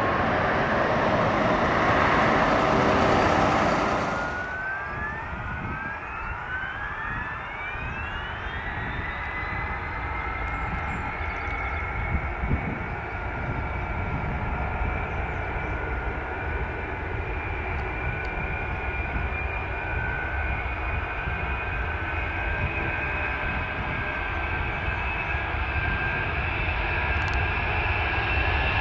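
FedEx McDonnell Douglas DC-10-30F's three General Electric CF6-50 turbofans spooling up: several whines rise together, then hold as a steady jet whine that slowly climbs and grows louder as the jet comes toward the listener. Before that, for about the first four seconds, a louder even rushing noise that cuts off abruptly.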